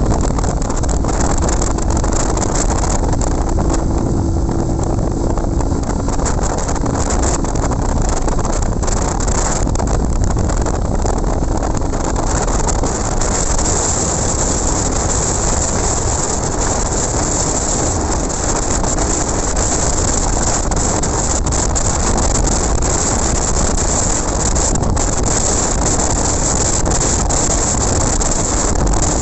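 Steady rush of wind over the microphone of a motorcycle cruising at highway speed, with the engine running evenly underneath.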